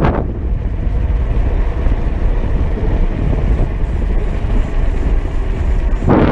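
Steady low rumble of wind buffeting the microphone during a mountain bike ride, with a short louder rush of noise near the end.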